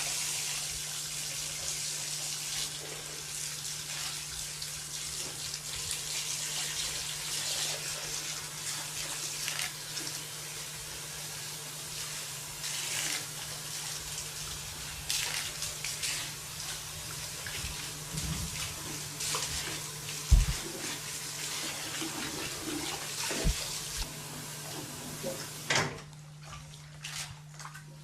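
Water running from a salon wash-basin tap and sprayer onto hair during a shampoo wash, a steady hiss that cuts off suddenly near the end. A few light knocks sound in the basin partway through.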